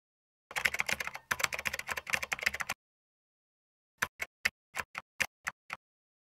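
Computer keyboard keystrokes: a fast, dense run of typing for about two seconds, a pause, then eight separate keystrokes about a second and a half in from the last third, one for each letter of a title being typed out.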